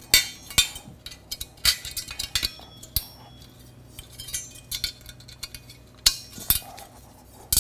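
Snap-together sheet-metal rails and uprights of an Aprilaire 1213 upgrade-kit filter frame clinking and clicking as they are handled and snapped together: a scatter of sharp metallic clinks, a few of them louder knocks.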